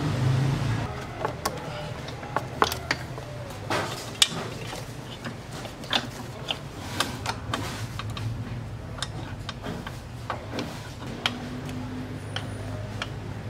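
Scattered sharp metallic clicks and clinks of hand tools and bolts as a motorcycle's rear brake master cylinder is fitted back on and its two 6 mm mounting bolts are tightened.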